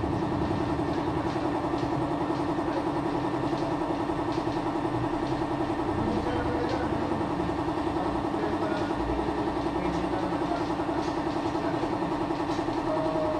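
An engine idling steadily, with an even, fast pulse.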